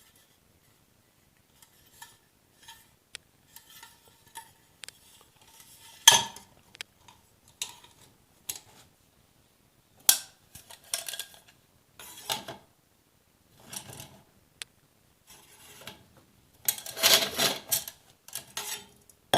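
Aluminium field cookware of the Swiss Army Volcano stove set (stove, cup and flask) clinking and knocking as it is handled. There is a sharp clank about six seconds in and a longer rattle near the end.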